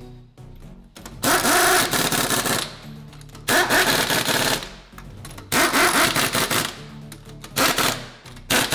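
Impact wrench rattling in four bursts of about a second each, with a fifth starting near the end, as it runs lug nuts onto a car wheel. Background music plays underneath.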